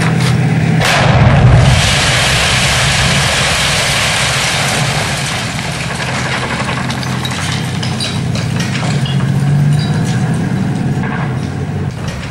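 A heavy explosion at a tank in a street. There is a sharp crack at the start and the loudest blast about a second in, followed by a long rumble that fades slowly over several seconds. A steady engine hum runs underneath.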